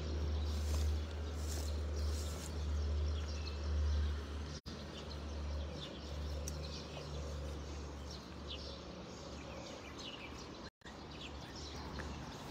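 Outdoor ambience: a steady low rumble with scattered short bird chirps. The sound cuts out for an instant twice, about a third of the way in and again near the end.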